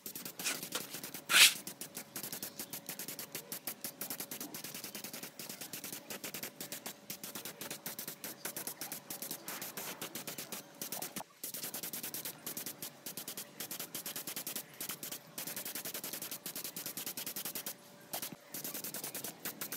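Continuous rapid scraping, many strokes a second, with one louder sharp sound about a second and a half in.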